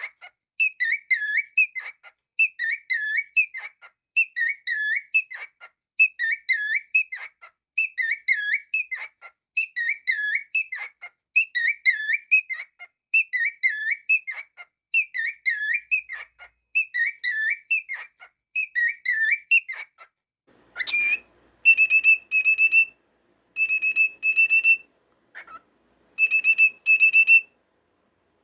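Cockatiel whistling a short, swooping phrase over and over, about once every two seconds. About two-thirds of the way through it switches to short, level, high notes in quick groups, with pauses between the groups.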